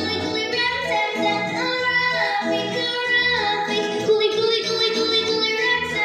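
A children's song: children's voices singing over backing music with a steady beat.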